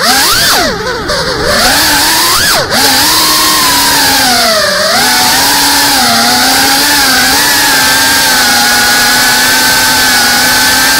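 FPV quadcopter's brushless motors and propellers whining under throttle, the pitch dipping and rising sharply a few times in the first five seconds, then holding fairly steady.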